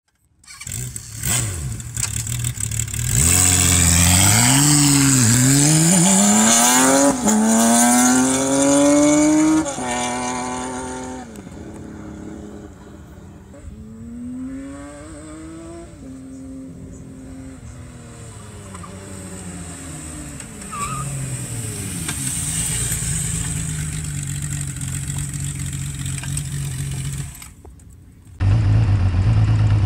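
Kawasaki Z1300's six-cylinder engine revving hard through several upshifts, each climb in pitch broken by a short drop at the gear change. It then falls away fainter and runs steadily, and near the end a louder, steady engine note starts after a brief dip.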